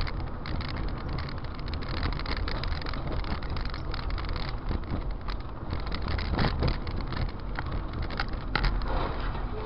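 Car driving on a road, heard from inside the cabin: a steady low road and engine rumble, with scattered light clicks and rattles throughout.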